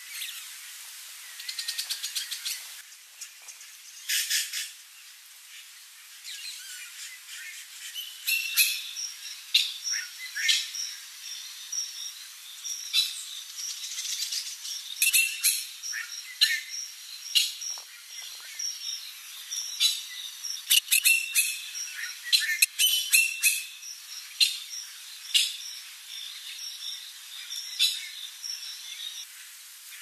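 Wild birds calling in short, sharp, high notes: a brief fast rattle about two seconds in, then a dense run of chirps from about eight seconds in to near the end.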